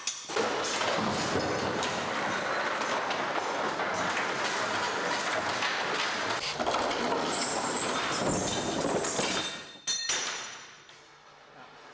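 Mechanical clattering and rumbling of a junk-built chain-reaction contraption's parts rolling and moving, with a high squeal in the second half. A single sharp knock comes near the end, after which the noise drops away.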